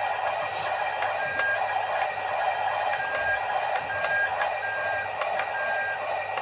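Small electric motor and gearbox of an RC toy construction vehicle whirring steadily, with short electronic beeps repeating about once a second like a reversing beeper.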